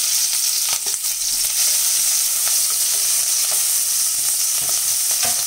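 Chopped green capsicum sizzling in hot oil in a non-stick wok, with a steady frying hiss. A wooden spatula stirs it, making a few short scrapes and taps against the pan.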